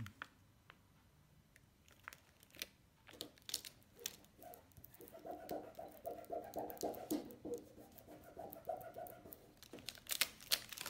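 Clear plastic transfer film crinkling and being rubbed down by fingers over a vinyl letter sticker: scattered light clicks and rustles, then a rhythmic squeaking from about five to nine seconds in as the film is rubbed.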